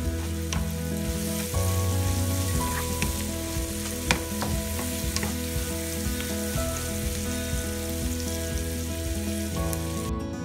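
Sliced onions sizzling in hot olive oil in a frying pan, stirred with a wooden spatula that scrapes and taps against the pan, with one sharp tap about four seconds in. Background music of held chords underneath.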